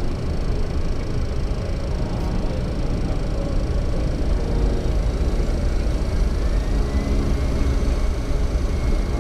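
Boeing 737-400 flight-deck noise on the ground: steady rumble of the aircraft rolling with its CFM56 engines running. A faint whine rises slowly in pitch through the second half.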